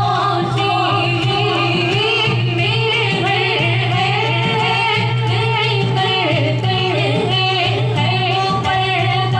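A woman singing a devotional naat into a microphone, her voice amplified over a loudspeaker in a long wavering melodic line, with a steady low hum underneath.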